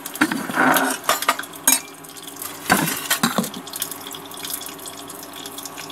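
Clinks and clatter of steel cookware, a pressure cooker of dal and its ladle being handled, in a few sharp knocks during the first half. Under them runs a steady hum with a faint hiss.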